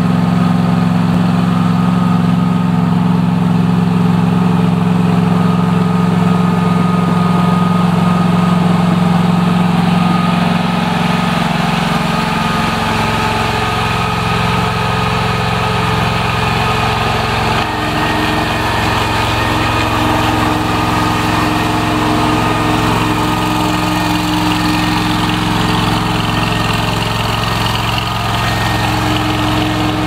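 Razorback mini track loader's engine running steadily while the loader is driven and worked on its joystick. About a third of the way in the engine note changes and gets slightly quieter, and a new steady hum joins soon after.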